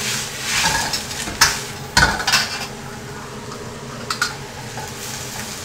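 A metal ladle scraping and clanking against a wok as shredded cabbage is stir-fried, with a soft sizzle underneath. There are a few sharp clanks in the first half and two close together about four seconds in. This is the first frying of the cabbage, which cooks off its water.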